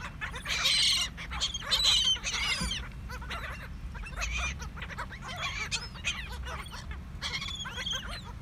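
A feeding flock of laughing gulls, adults and brown juveniles, calling over one another in many short overlapping cries and squawks. The calls swell into louder bursts about a second in, about two seconds in, and again near the end.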